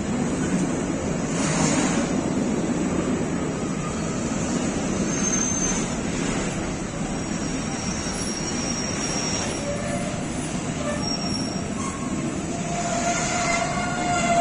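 Container freight train's flat wagons rolling past close by: a steady rumble of wheels on rail. Thin, high-pitched metallic squeals come through several times, with lower squealing tones toward the end.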